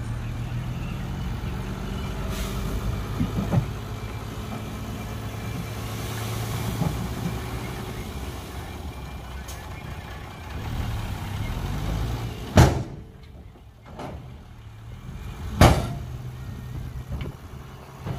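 Dump truck's diesel engine running steadily while the tipper bed lifts and unloads soil. Near the end come two sharp bangs about three seconds apart.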